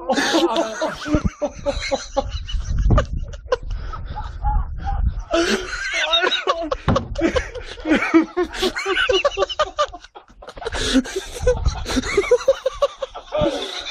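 People laughing hard in bursts of short repeated 'ha-ha' sounds, on and off throughout.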